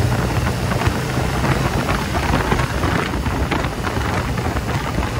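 BMW motorcycle on the move, wind buffeting the microphone in a steady rough rush over the engine's low hum, which fades out about a second and a half in.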